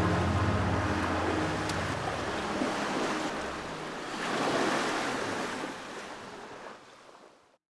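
Sea waves washing in, with one swell rising and falling about halfway through, over the low sustained notes of background music in the first few seconds. Everything fades out near the end.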